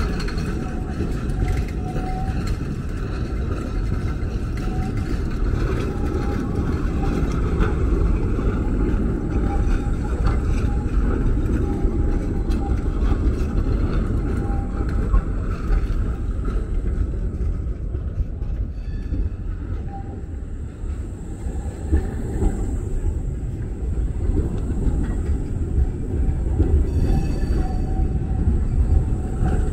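Street tram running on its rails: a steady low rumble throughout, with a brief high ringing near the end.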